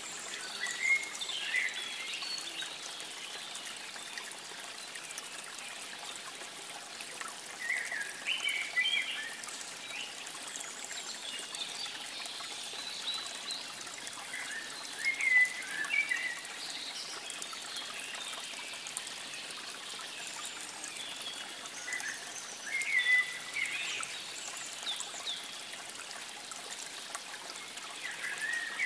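A songbird singing short, warbled phrases every few seconds over a steady trickle of running water.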